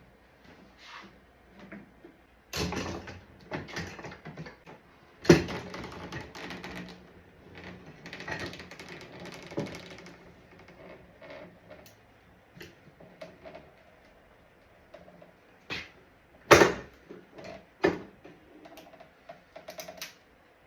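Workshop handling noises: an irregular series of knocks, clunks and rattles as things are moved and set down, with two loud sharp knocks, one about a quarter of the way in and one about three-quarters of the way through.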